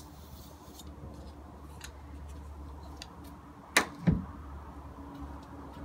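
Small clicks and scrapes of a wiper blade being handled while its old rubber insert is pulled out. About four seconds in there is a sharp click and then a low thump.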